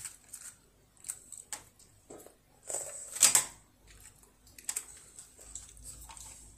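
Child eating natto: a small fork clicking and scraping against the plastic natto tray in short scattered ticks, with eating noises as he takes the sticky strands into his mouth. A louder, longer noisy sound comes about three seconds in.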